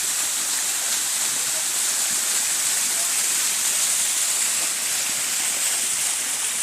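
Waterfall rushing steadily: an even, hissing water noise, strongest in the high range.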